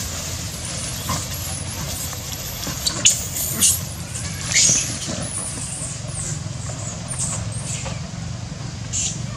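Several short, shrill, sweeping squeals from macaques, loudest about three to five seconds in, over a steady low rumble.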